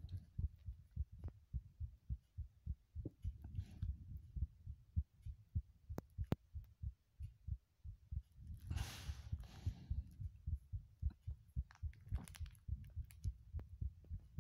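Heartbeat: a steady run of low thumps. A brief hiss comes about nine seconds in, and there are a few faint sharp clicks.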